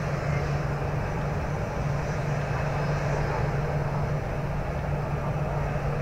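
Jet airliner engines running, a steady rumble with a constant low hum that neither rises nor falls.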